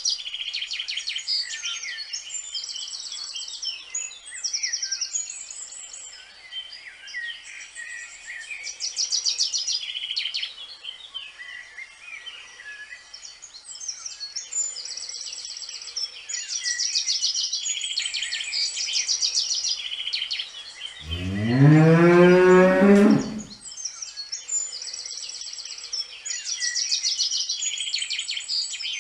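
Birds singing and chirping throughout, with a cow mooing once, long and loud, about three quarters of the way through.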